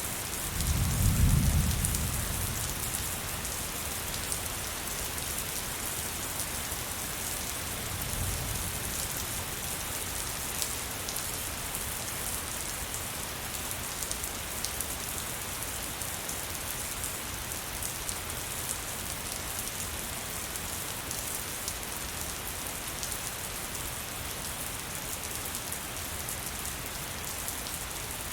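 Steady rain falling, an even hiss flecked with the ticks of individual drops. A low rumble swells about a second in and again more faintly around eight seconds.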